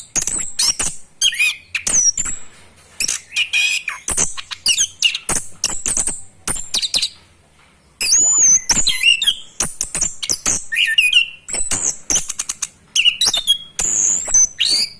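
Orange-headed thrush practising its rolling song: a rapid, broken jumble of high whistles, chirps and sharp clicks, with a short pause about seven seconds in before it starts again.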